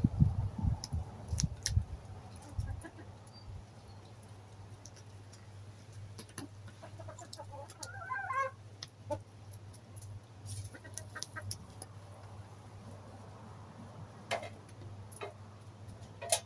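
Domestic hens clucking: a short run of calls about halfway through and more near the end, with scattered light ticks between them. A low rumble runs through the first couple of seconds.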